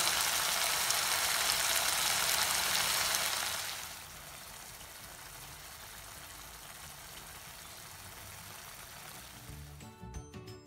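Marinated chicken pieces sizzling in hot oil in a kadhai as they are sautéed with browned onions and spices: a steady hiss that drops away to a much fainter hiss about four seconds in. Music comes in near the end.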